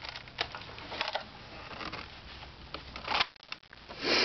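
Handling noise: scattered short clicks and rustles, with a louder rustling burst near the end.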